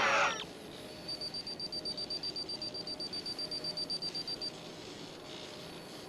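DeLorean time machine sound effect: a crackling electrical burst fades out in the first half-second. Then a high-pitched electronic beep pulses rapidly for about three and a half seconds, stops, and starts again near the end.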